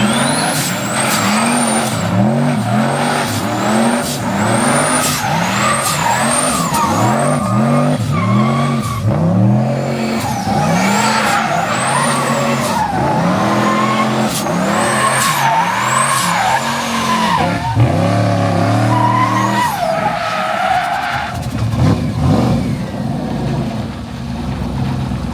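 Turbocharged Chevrolet Caprice engine revved hard over and over, about once a second, with a high turbo whistle rising and falling with each rev. Near the end it settles into a rougher, steadier running.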